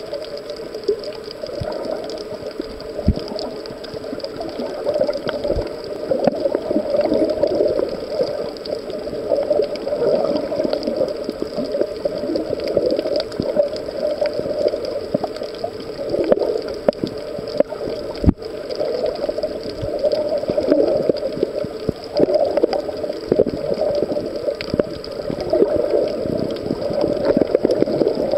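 Water heard through a submerged camera: a continuous muffled gurgling and sloshing, with a few short low knocks, the clearest about two-thirds of the way through.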